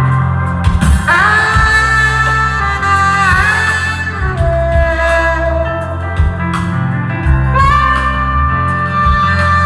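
Live band playing loud amplified music, recorded from within the audience: a steady bass line under long held melody notes that slide in pitch.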